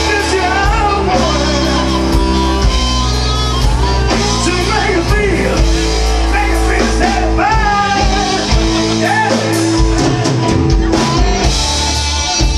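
Live rock band playing: a singer's voice over electric guitar, bass and drums, heard from among the audience.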